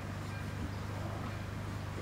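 Level-crossing warning bell ringing faintly, short high chimes about once a second, over a steady low hum.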